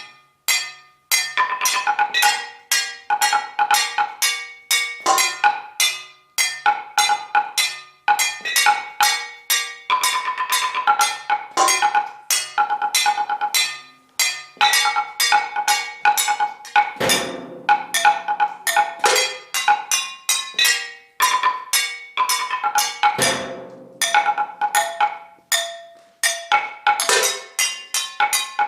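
Solo percussion music played on struck metal objects: a quick, rhythmic stream of sharp strikes that ring on at a few recurring bell-like pitches. Twice, about two-thirds of the way through, a deeper ringing stroke sounds under them.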